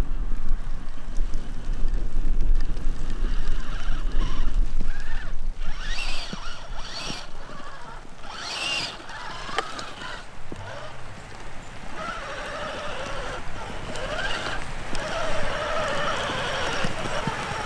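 Electric RC crawler truck's sensored brushless motor whining up and down in pitch as the truck climbs and churns through grass and mud. Its tyres and chassis scrabble against the ground in short noisy bursts about halfway through. Wind rumbles on the microphone in the first few seconds.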